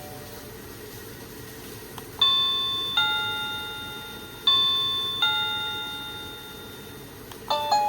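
Electronic doorbell chime playing a two-note ding-dong, a higher note then a lower one, twice over, each note ringing and fading away. Near the end a quick melody of many short notes begins: the doorbell's next ringtone.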